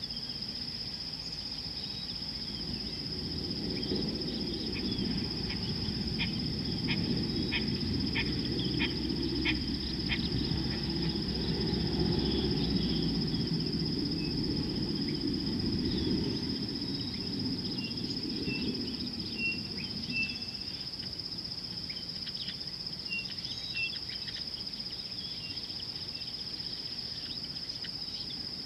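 Outdoor ambience of a steady, high-pitched insect drone, with scattered short bird chirps and clicks. A low rumble swells in about four seconds in and fades away by about twenty seconds.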